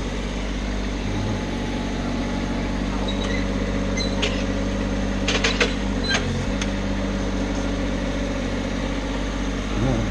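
An engine idling steadily. A few sharp clicks or knocks come close together around the middle.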